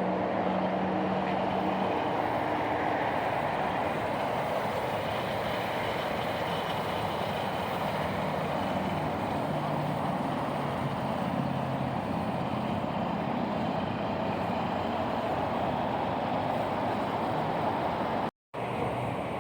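Steady outdoor vehicle noise, like traffic and engines running, with no speech; it cuts out to silence for a moment near the end.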